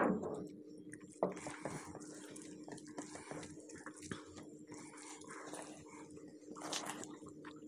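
Hands squishing and mixing rice with curry on steel plates, with chewing and wet mouth sounds; a sharp knock at the start and another about a second in.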